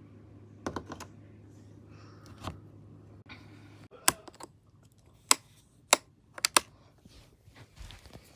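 Scattered sharp clicks and knocks, some in quick pairs, over a faint low hum that stops about four seconds in.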